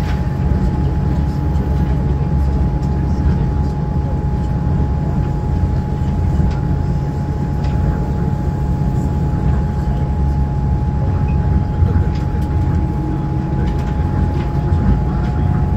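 Tokyo Monorail car running, heard from inside the car: a steady low rumble with a constant whine over it, and a few faint clicks.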